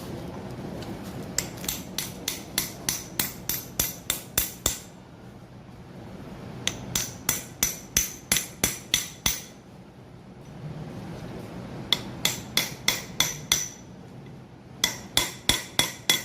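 Hammer strikes on the metal of a CO2 semi-hermetic compressor, in four quick runs of ringing taps about three or four a second with short pauses between. The part is being tapped around its sides to drive it loose during disassembly.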